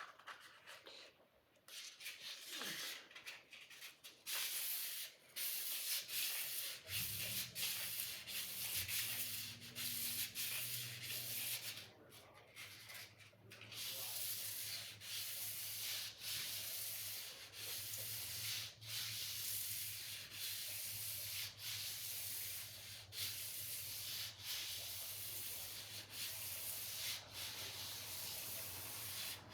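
Sword blade being sharpened: repeated scraping strokes, about one a second. A low steady hum joins about seven seconds in.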